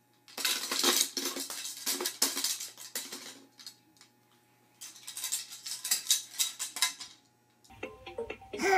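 Hard plastic baby toys rattling and clattering as they are shaken and knocked together, in two bouts of quick clicks separated by a short pause.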